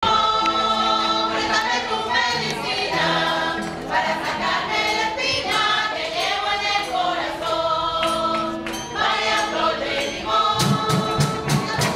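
A mixed group of voices singing a Venezuelan parranda in chorus, with string accompaniment. About ten and a half seconds in, a drum starts beating steadily with sharp percussion clicks.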